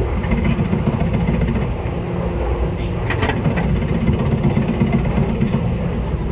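Seibu 10000 series electric train running, heard from the car floor above the line breaker: a steady low rumble of wheels and motors, with a short cluster of clicks about three seconds in.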